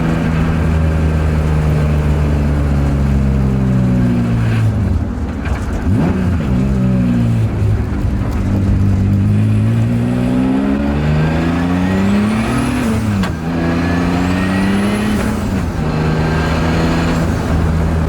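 Turbocharged BMW E36 M3 straight-six under way: the revs sag, then climb hard twice, each pull ending in a sudden drop in pitch, with a high whine rising alongside the revs before settling to steady running.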